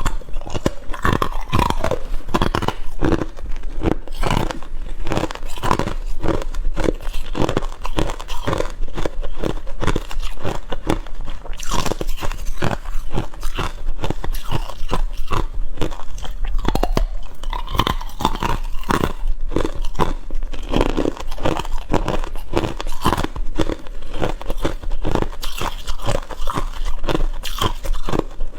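Close-up crunching of hard and crushed ice being bitten and chewed, a dense run of sharp cracks and crackles.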